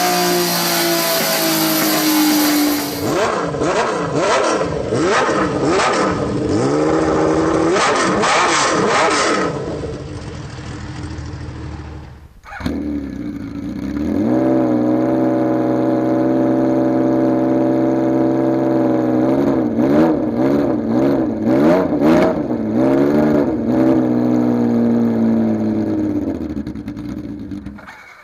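Honda CBX 1050's inline six-cylinder engine idling and being revved in repeated quick throttle blips. There is a short break about twelve seconds in, after which it idles steadily and is blipped again.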